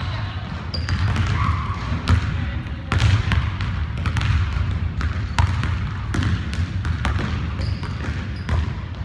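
Basketball bouncing on a hardwood gym floor, irregular sharp thuds ringing out in a large gym.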